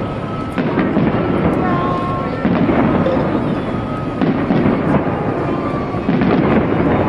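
Aerial fireworks going off in quick succession: a deep boom every second or two, with sharp crackles in between.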